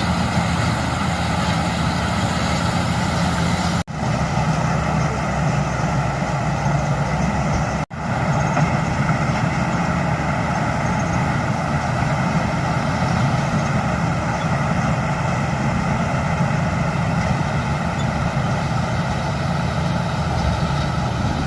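Heavy farm machinery running steadily during corn harvesting: a diesel engine at working speed with a dense mechanical clatter over it. It cuts out for an instant twice, about 4 and 8 seconds in.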